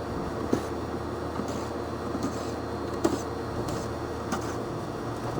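Air-conditioning unit running with a steady mechanical hum, and a few light clicks and knocks on top. The deepest part of the hum drops away about four and a half seconds in.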